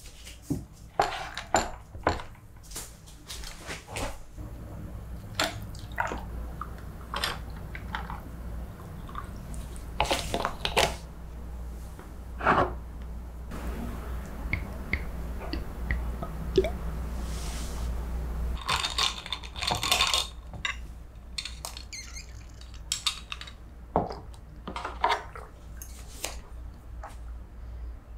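Tableware being handled: a glass bowl, glass and bottle set down on a wooden tray, and a metal spoon clinking against the glass bowl as the oatmeal is stirred. The sound is a string of separate light knocks and clinks.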